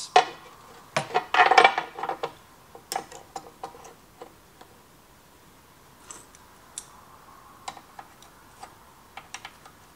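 Small metal hand tools and parts being handled on a workbench: a cluster of louder knocks and scrapes about a second in, then sparse light clicks and taps.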